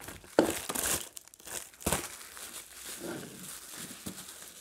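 Bubble wrap crinkling and rustling as it is unwrapped by hand, in irregular bursts, with a sharp crackle just under two seconds in.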